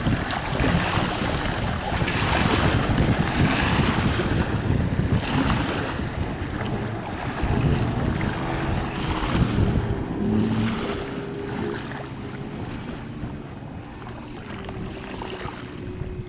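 Hannibal 4.5 m speedboat running at speed close by: an engine drone under the rushing hiss of its spray, with wind on the microphone. The sound fades as the boat moves away near the end.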